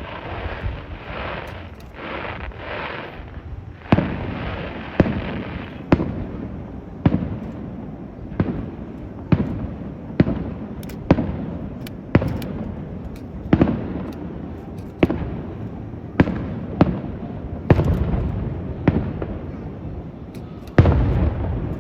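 Aerial fireworks shells bursting one after another, a sharp bang about every second, each trailing off in a rumbling echo. The first few seconds hold a rushing hiss before the bangs begin, and the loudest bang comes near the end.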